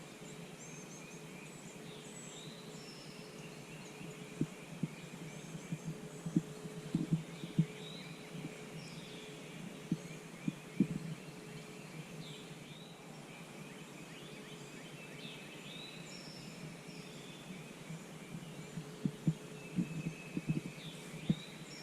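Quiet woodland at dawn: songbirds chirping faintly, a faint steady hum, and scattered soft low knocks.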